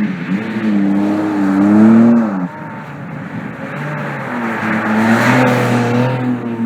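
Porsche 718 Cayman GT4 RS's naturally aspirated flat-six running hard while drifting, its pitch wavering up and down. It drops off about two and a half seconds in, then builds again with a hiss of tyre squeal near the end.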